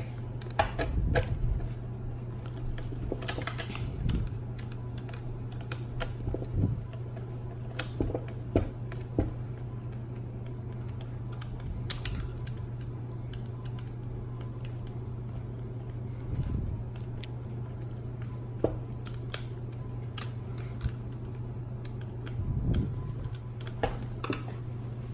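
Scattered small clicks and taps of a screwdriver and plastic parts being handled as a screw is driven into an RC car's wheelie bar mount, over a steady low hum.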